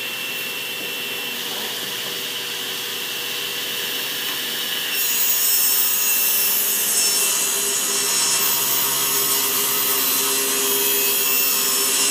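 SawStop table saw running with its blade at speed, giving a steady whine; about five seconds in the blade starts cutting the board and the sound grows louder and hissier as a rip cut is fed through.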